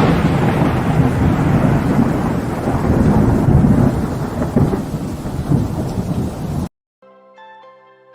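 Loud rolling rumble of thunder over steady rain, fading slowly, then cut off abruptly; soft music with a few gentle held notes follows near the end.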